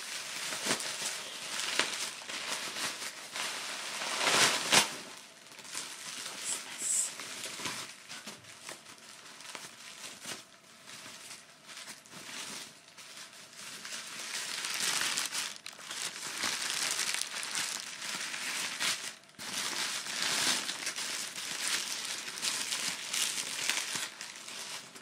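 White tissue paper crinkling and rustling as a gift is unwrapped by hand, in uneven bursts, loudest about four to five seconds in.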